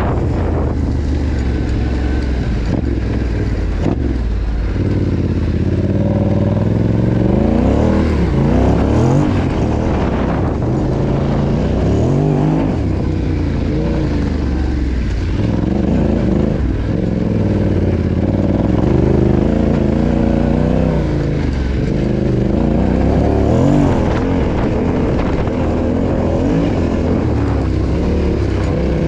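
Yamaha Ténéré 700's 689 cc parallel-twin engine under a rider on rough ground, its revs rising and falling over and over as the throttle is opened and closed.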